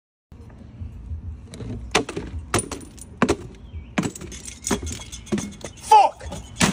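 Sharp, light clicks at an even pace, about three every two seconds, over faint outdoor noise, with a short wavering tone about six seconds in.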